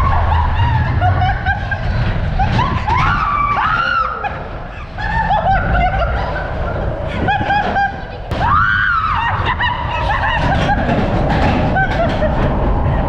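Riders screaming and laughing on the Matterhorn Bobsleds roller coaster, with many short shrieks and one long rising-and-falling scream a little past the middle, over the steady low rumble of the bobsled car running along its track.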